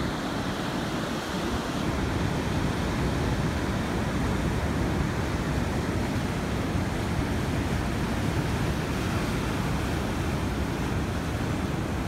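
Ocean surf breaking against a rocky shore, a steady rushing wash of waves, with some wind noise on the microphone.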